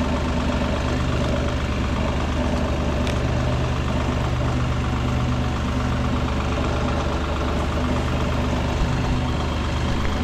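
Carlton SP6016TRX stump grinder's engine running steadily.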